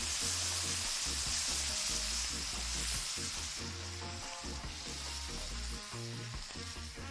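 Water and chicken fat sizzling hard in a hot cast-iron skillet over a wood fire, just after water was poured into the fat to start a gravy. The sizzle eases a little after about three and a half seconds.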